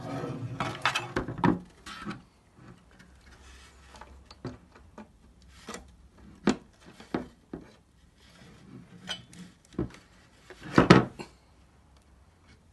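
Hands handling the casing of a tractor's Datatronic computer unit: rubbing and small clicks as its wiring connector is plugged back in, scattered taps, and a louder clatter of knocks near the end.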